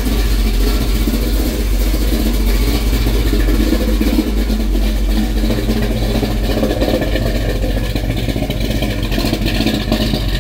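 Truck's V8 engine, fitted with a COMP Cams Thumpr hydraulic roller cam, running steadily at idle as it warms up toward operating temperature.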